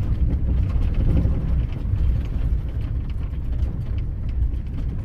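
Vehicle driving over a rough, bumpy road: a strong uneven low rumble from the tyres and suspension, with many small rattles and knocks.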